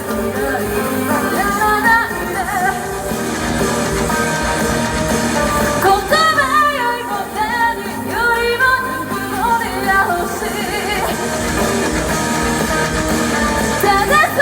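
A band playing a song live, with a lead singer's voice wavering in pitch over sustained chords and bass.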